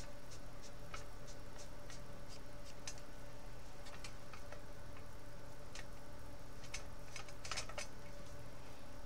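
Light clicks and taps of hands handling a plastic scale model aircraft: a quick run of ticks at the start, scattered single clicks, then a short cluster near the end, over a steady low hum.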